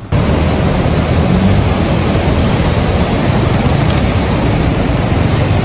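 Loud, steady rushing of a fast glacial mountain stream, starting abruptly just after the beginning.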